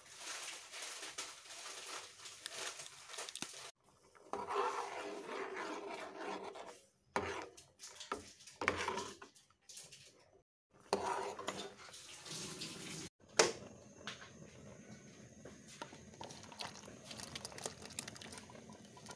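Cooking sounds from short spliced clips of a metal pot of tteokbokki rice cakes: water and sauce bubbling, with a spoon clinking and scraping against the pot. There is one sharp knock about thirteen seconds in, and sauce is poured into a bowl near the end.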